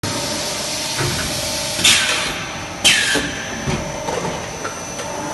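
HDPE extrusion blow moulding machine running with a steady hum. Two short, sharp hisses of compressed air come about two and three seconds in, the second trailing off. A few light knocks sound as the mould clamps move.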